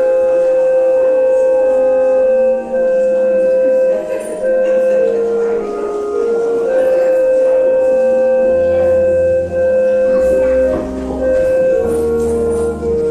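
Instrumental music: a slow melody of long held notes moving in steps. Low bass notes come in about eight and a half seconds in.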